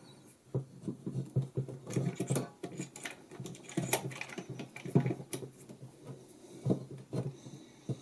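A SmallRig super clamp mount being handled and fitted onto a camera rig: irregular small clicks and knocks of metal parts.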